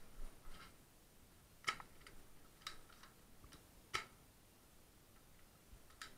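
Scattered light clicks and ticks from footsteps and gear on a rubble-strewn concrete floor, with two sharper clicks about a second and a half and four seconds in.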